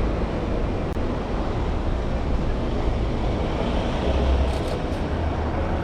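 Steady city street noise: a constant low rumble of passing traffic, with some wind on the microphone.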